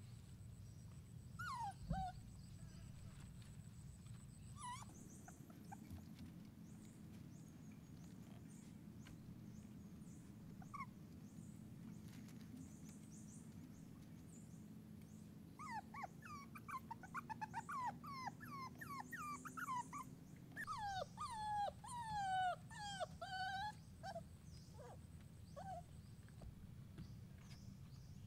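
Puppy whimpering: a few single high whines early on, then a long run of rapid, falling whimpers past the middle.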